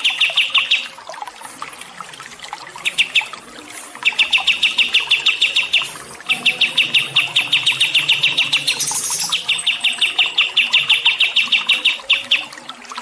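A songbird singing long trills of rapid, evenly repeated notes, about a dozen a second. Each run lasts one to two and a half seconds, with short breaks between.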